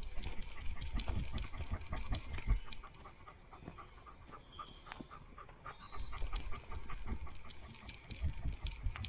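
A dog panting quickly and rhythmically as it trots, heard close up from a camera on its own head. Two louder stretches with low rumbling, in the first three seconds and again from about six seconds in.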